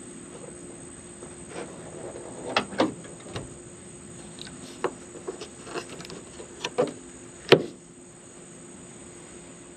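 A string of sharp clicks and light knocks, irregular, with the loudest click about seven and a half seconds in, over a steady faint hiss.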